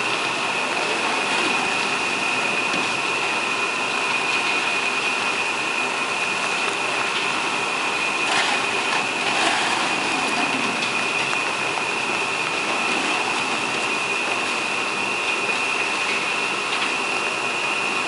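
ZSF30 concrete reclaimer running as it washes and separates sand and gravel out of waste concrete. The machine noise is steady, with a constant high whine over it.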